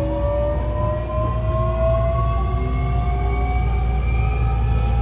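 Hankyu 1300 series electric train's Toyo IGBT inverter and traction motors whining as the train accelerates, several tones rising together slowly in pitch over a steady low running rumble.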